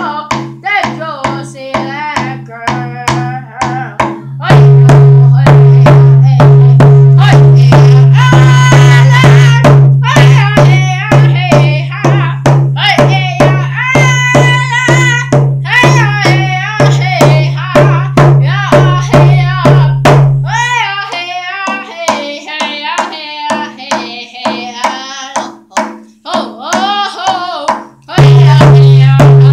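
A boy singing while beating a hand-held frame drum with a beater in a steady beat, about three strokes a second. The drum's low ring grows loud about four seconds in, drops away around twenty seconds in while the beat goes on more softly, and returns near the end.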